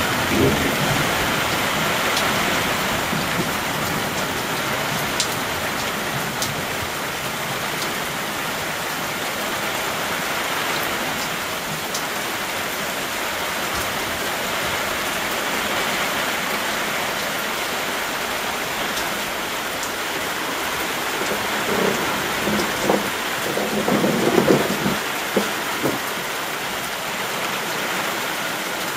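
Heavy rain falling steadily in a downpour. A few short, louder sounds break in about three-quarters of the way through.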